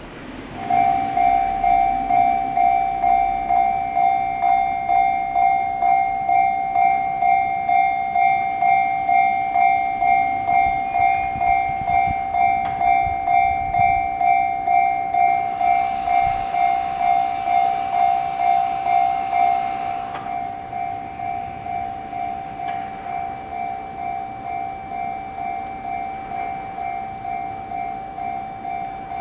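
A Japanese railway level crossing's electronic warning bell, the JR standard tone pitched slightly high, starts ringing just after the start, which signals that a train is approaching. It repeats at about two strikes a second, a train rumbles past in the middle, and the bell becomes quieter about two-thirds of the way through.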